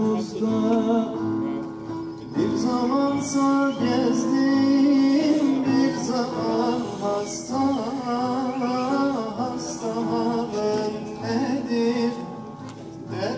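Live Turkish folk song: a voice singing into a microphone over acoustic guitar accompaniment, amplified through a small PA.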